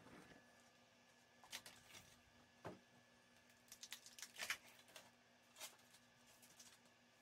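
Faint hand-handling sounds: a few short crackles and scrapes of blue painter's tape being peeled off and a cut-out wooden dish being lifted free, over near-silent room tone.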